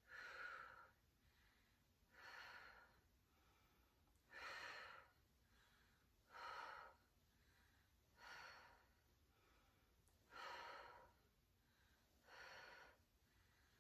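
A woman's faint, paced breathing, seven breaths about two seconds apart, in time with side-lying clamshell knee lifts, each lift paced to a breath.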